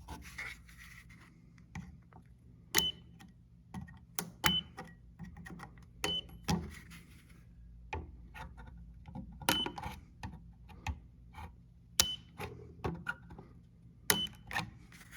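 Mini welder tacking a nickel strip onto cracked metal parts of a garage door opener: about six sharp snaps a second or two apart, each followed at once by a short high tone, among small handling clicks and rustles.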